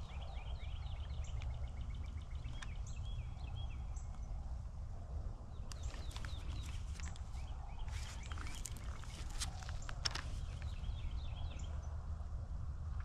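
Birds calling outdoors, a quick run of repeated chirps in the first few seconds and more scattered calls later, over a steady low rumble. Around the middle come several sharp clicks and rustles of the carbine being handled in gloved hands.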